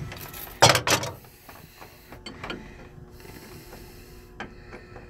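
Bronze seacock ball valve being twisted by hand onto the threaded through-hull fitting: metal threads scraping and clicking. There is one loud scrape within the first second, then scattered lighter clicks.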